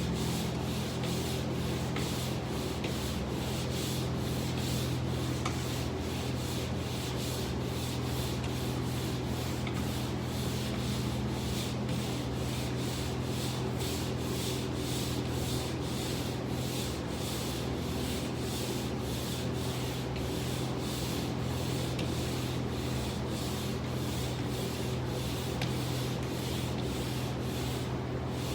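Hand pole sander pushed back and forth over a surface, a steady rhythmic sandpaper scrape at about two strokes a second. A steady low hum runs underneath.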